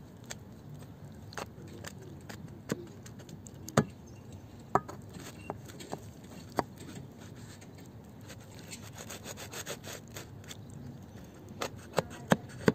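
A table knife sawing and scraping through a thick pizza crust in a metal frying pan, with sharp clinks of the knife and fork against the pan scattered through, several close together near the end.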